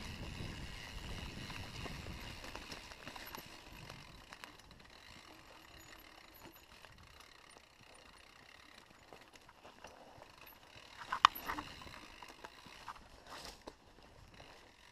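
Mountain bike rolling down a dirt forest singletrack, heard from the rider's own camera: a low rumble that fades after the first few seconds, scattered rattles and clicks from the bike, and one sharp knock about eleven seconds in, the loudest sound.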